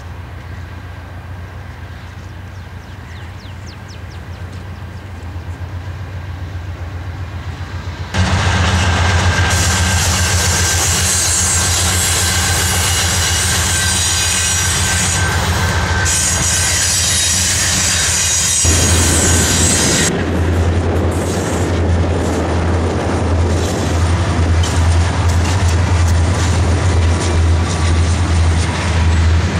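A GE wide-cab diesel locomotive approaches and passes close by, its engine running with a low steady drone that grows louder and jumps sharply at about eight seconds as the unit goes by. A long freight train's cars then roll past with a heavy rumble and a steady clickety-clack of wheels over rail joints.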